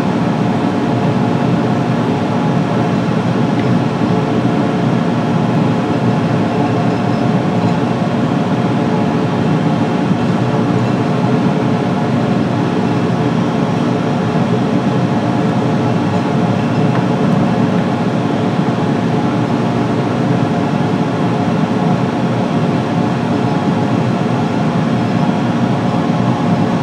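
Steady, unbroken motor hum of the MDF Rose Engine Lathe 2.0's powered cutter running on the work, a fresh, shorter cutter head fitted.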